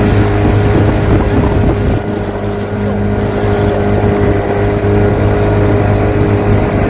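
Outboard motor pushing an inflatable dinghy, running at a steady speed with an even hum.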